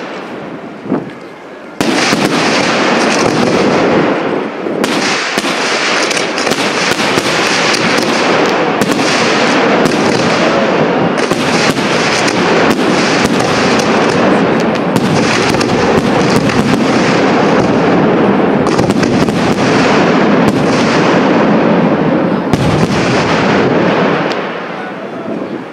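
Aerial firework shells bursting in a dense, rapid barrage, the bangs overlapping into a continuous din. It starts suddenly about two seconds in, after a single separate bang, and thins out a few seconds before the end.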